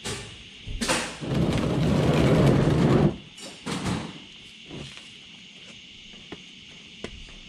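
Handling noises: a sharp knock about a second in, then about two seconds of loud rough noise, followed by a few lighter knocks.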